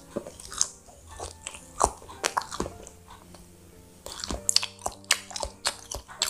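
A person biting into and chewing a baked banana-and-cheese bread roll: irregular sharp crackles and wet mouth clicks, thickening into a busier run of chewing about four seconds in.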